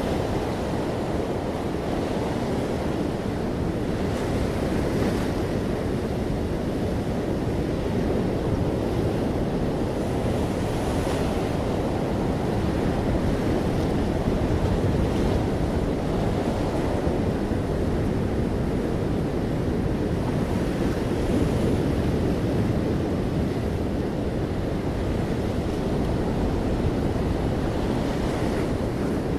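Ocean waves breaking and washing on a beach, a steady low rushing of surf with gentle swells every few seconds.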